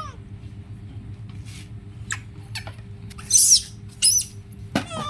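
Monkeys giving a few short, very high-pitched squeaks and chirps, the loudest about three seconds in and more just after four and near the end, over a steady low hum.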